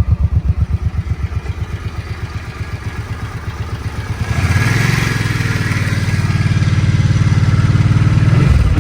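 A 2006 Suzuki VZ800 M50 Boulevard's V-twin engine idling with an even pulsing beat, then revved up about four seconds in and held at higher revs, dropping back near the end. It runs nice and smooth.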